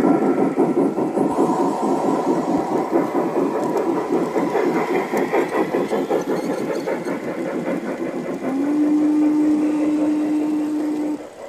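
G-scale model trains running past close by, their wheels clattering and rattling along the track. About eight seconds in, a steady low tone joins for about three seconds, and the sound drops off sharply near the end.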